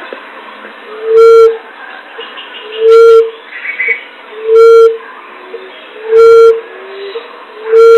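Recorded lure call of an emerald dove (punai tanah): a low, hollow coo repeated five times, about one every 1.6 seconds, loud enough to distort, with softer shorter low notes between some coos. Faint high chirps sound in the background.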